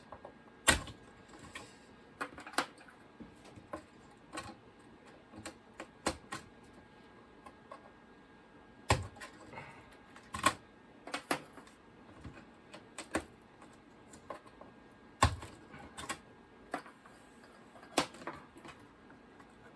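Irregular sharp clicks and clacks of RAM modules being pulled from the memory slots of a Macintosh IIfx logic board and handled, a few louder knocks among them.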